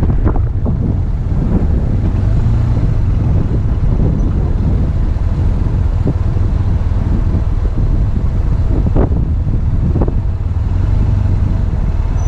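BMW R1200GS motorcycle's boxer-twin engine running with a steady low rumble, picked up with road and wind noise by a bike-mounted camera.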